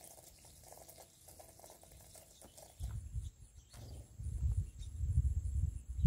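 Light splashing and pattering of house sparrows bathing in a shallow plastic tub bird bath, then from about three seconds in irregular low rumbling gusts of wind on the microphone, the loudest sound, with a thin steady high tone running alongside.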